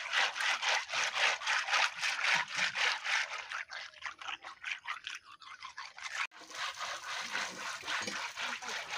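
Many small freshwater snail shells clicking and rattling against wet concrete as hands rub them in a thin layer of running water, with water trickling.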